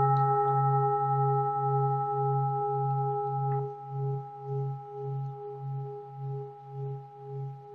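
A singing bowl rings on after a single strike, a low hum and a few higher tones pulsing about twice a second as it slowly fades: a bell closing a one-minute meditation.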